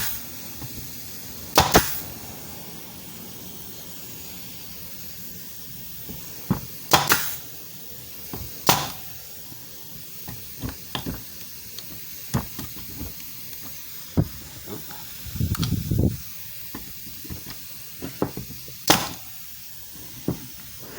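Central Pneumatic 18-gauge pneumatic brad nailer firing four separate shots, each a sharp crack followed by a short hiss of exhaust air. Quieter clicks and knocks of handling come between the shots.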